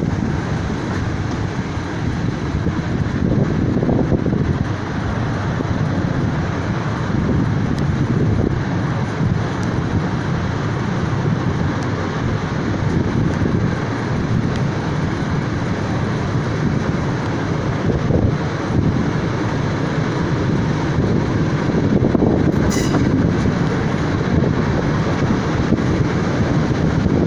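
Passenger train running along the track, heard from an open carriage window: a steady rumble of wheels on rails mixed with wind rush. A brief high-pitched screech comes near the end.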